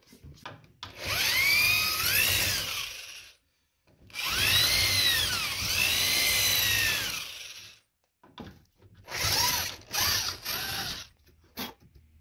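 Electric drill boring through a door strike plate into the wooden jamb for the latch bolt: two long runs of a few seconds each, the motor's pitch rising and falling as the trigger is eased, then several short bursts near the end.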